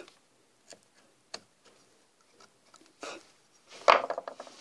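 A few sharp, separate clicks of a hand carving chisel paring small cuts in wood, then a louder rough rubbing and clatter near the end as the phone camera is handled and moved.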